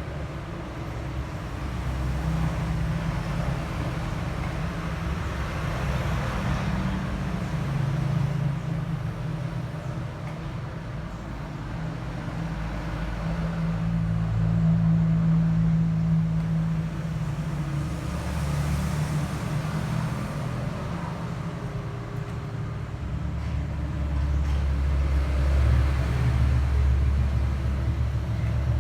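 A low, uneven rumble that swells and fades every few seconds, like passing road traffic.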